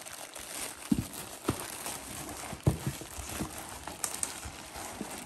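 Plastic bags and bubble wrap crinkling and rustling as a heavy engine is worked out of a cardboard box, with a few dull knocks, the loudest about one and a half and nearly three seconds in.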